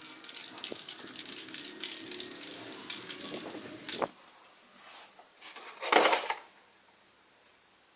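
Aerosol spray paint hissing with clicks from the can, ending in a sharp click about four seconds in. About six seconds in comes a loud, brief scrape and rustle as the painted Depron foam airframe is picked up and handled on a desk.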